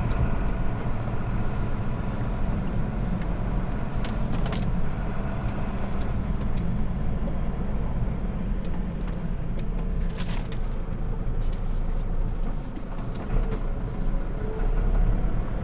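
Lorry's diesel engine and drivetrain running at low speed, heard from inside the cab as a steady low rumble, with a few short clicks or rattles from the cab.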